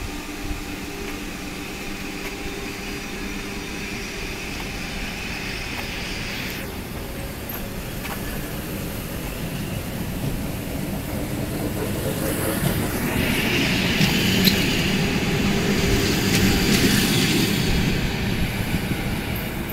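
ET2M electric multiple-unit train moving along the platform: a steady hum of traction equipment with wheel and rail noise, growing louder from about twelve seconds in.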